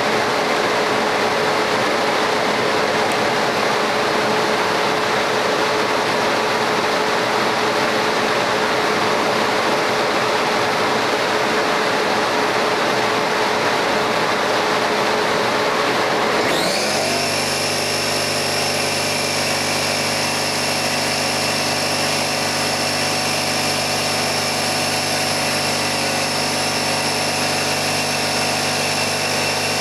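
Laser engraving machine running while it engraves a stone tile: a steady, loud mechanical whir. A little over halfway through, the sound changes abruptly, with a brief rising whine settling into a steadier hum with several high steady tones.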